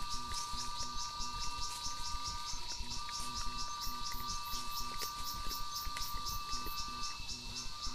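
Chorus of insects, with rhythmic chirps at about four a second over a steady high trill and a couple of steady whining tones.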